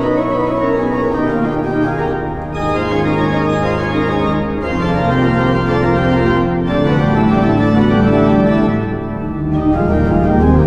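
Klais pipe organ playing a pastorale: low pedal notes held under a moving upper line, the bass shifting every two seconds or so.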